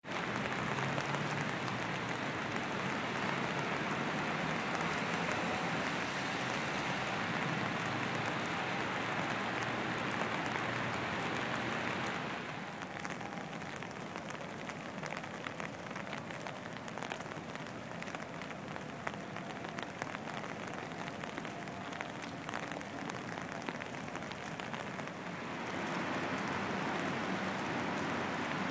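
Steady rain falling on wet paving, a dense hiss that thins about twelve seconds in to a patter of separate drops, then thickens again near the end.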